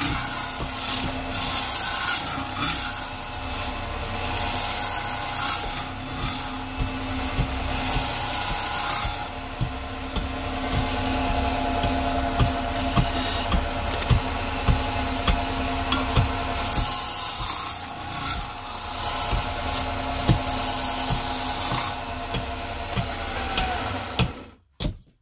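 Wood lathe running while a hand turning tool cuts the spinning wood: a scraping hiss that comes and goes in passes over the steady hum of the motor, with light regular ticks in the quieter stretches. The sound drops out suddenly just before the end.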